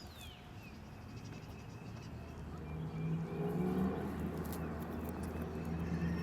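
A bird's short falling whistle right at the start, then a low engine drone that swells from about two and a half seconds in and holds steady, like a vehicle coming near.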